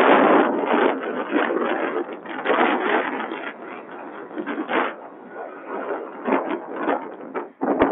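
Wind buffeting the microphone and traffic noise, heard from inside a moving vehicle, in uneven gusts that are loudest at the start.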